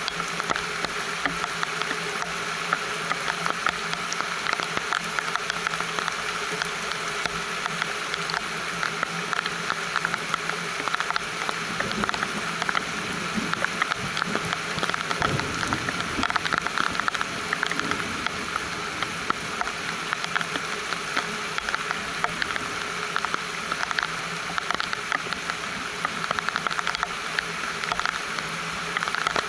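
Steady rain pattering on a greenhouse roof, with many small drop hits close together.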